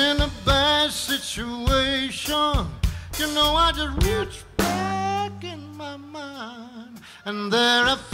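A man singing with a live band, acoustic guitar among the instruments. He holds one long note about halfway through.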